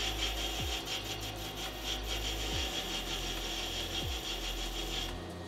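Metal lathe cutting a cast brass bar: the tool shears brass with a steady cutting noise that stops about five seconds in.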